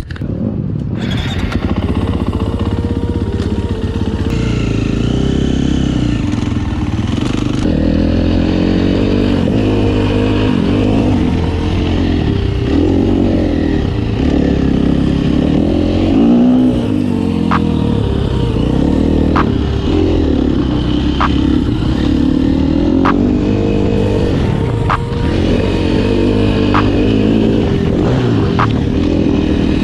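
KTM 350 four-stroke motocross bike engine revving up and down over and over as it is ridden round a dirt track, heard from a camera strapped to the rider's chest. Sharp ticks come every second or two in the second half.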